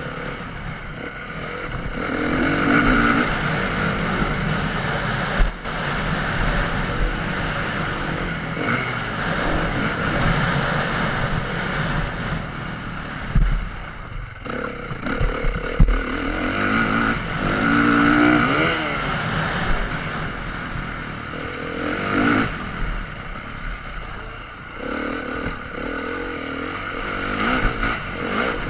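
Honda motocross bike's engine revving up and falling back again and again as it is ridden over a dirt track, with wind on the microphone and a few sharp knocks from bumps.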